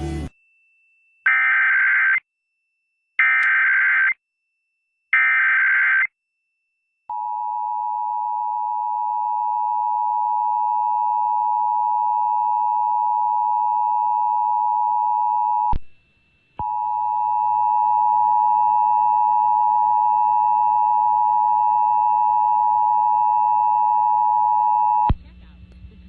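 Emergency Alert System test tones heard over FM radio. Three short bursts of SAME digital header data come first. Then the long steady two-tone attention signal (853 and 960 Hz) plays; it cuts out briefly about two-thirds of the way through and resumes before stopping.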